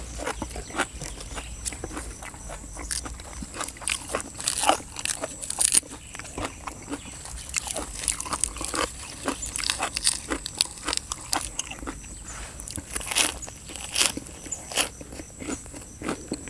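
A person chewing crisp raw lettuce and spicy chicken-feet salad close to the microphone: a fast, irregular run of crunches and wet mouth sounds.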